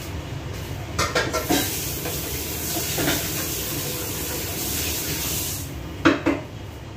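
Dishes clattering in a kitchen sink, then the tap running with a steady hiss for about four seconds, and another clatter of dishes near the end, over a steady low hum.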